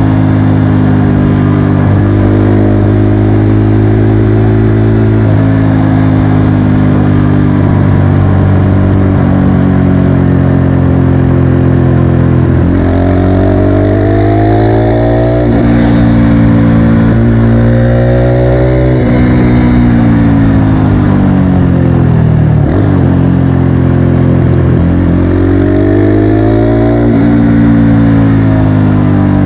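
Motorcycle engine running under way: steady stretches at a constant pitch, and several times the engine revs up with the pitch climbing, then dropping back sharply at each gear change.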